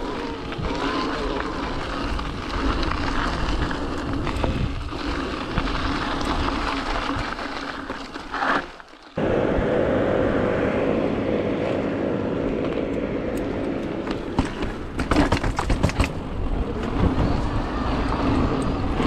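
Riding noise of a mountain e-bike on a singletrack trail: a steady rumble of tyres and wind on the microphone, with a burst of sharp rattles and knocks over rough ground about 15 to 16 seconds in.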